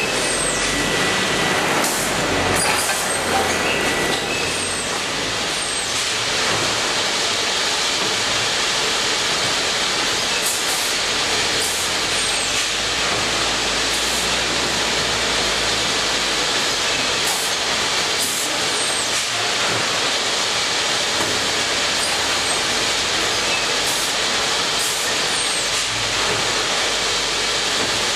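Automatic bag palletiser and conveyors running: a steady machine noise with a constant hiss and a low hum, broken now and then by short, sharp high clicks.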